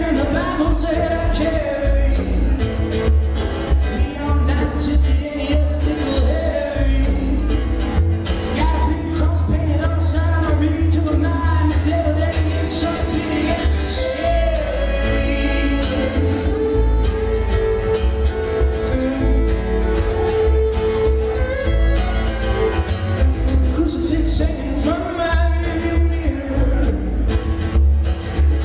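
Live band music: a man singing over strummed acoustic guitar, upright bass and fiddle.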